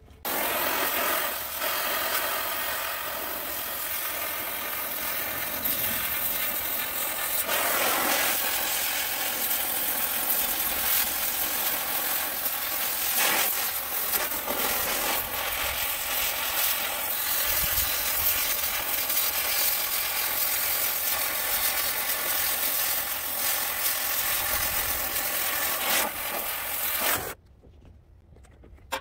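A motor-driven power tool running steadily with a dense, harsh noise, switched on at the start and cutting off abruptly near the end.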